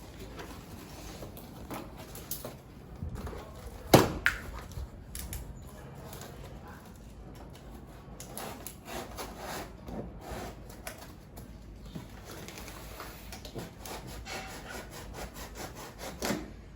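Stiff cardboard of a mirror's shipping box being torn and worked open: irregular scraping, rubbing and crackling of the card, with one sharp knock about four seconds in.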